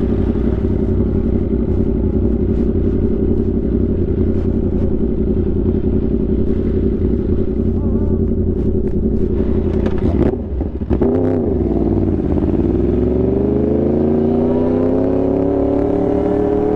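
Yamaha R1 inline-four engine running at steady revs. About ten seconds in, the throttle closes briefly with a few clicks and the revs dip, then the pitch climbs steadily as the bike accelerates.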